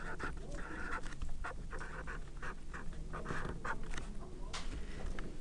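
Blue felt-tip marker writing on paper: a run of short, irregular scratchy strokes.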